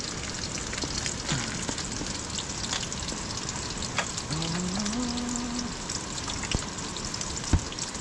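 Sausages sizzling in a frying pan on a small gas canister camping stove: a steady crackling hiss with scattered pops. About halfway through there is a brief rising hum, and near the end a single sharp knock.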